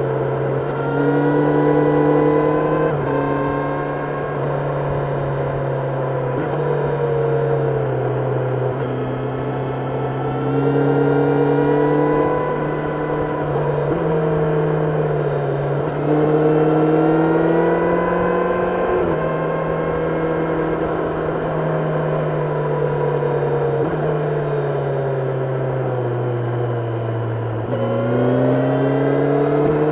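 Kawasaki Ninja 1000SX inline-four engine under way on winding roads, its pitch rising under throttle and falling back again and again, with sudden steps in pitch as gears are changed.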